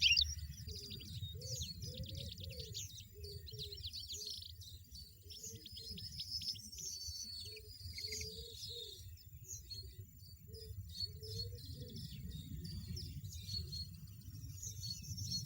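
European goldfinch twittering: fast runs of high chirps and short trills that keep going with brief pauses, over soft background music.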